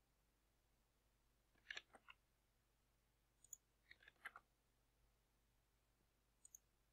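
A few faint computer mouse clicks, in small clusters about two seconds and four seconds in, over near silence.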